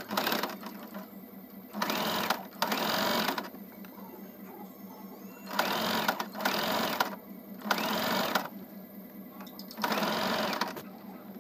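Electric household sewing machine stitching in about seven short runs, each under a second, with brief pauses between them.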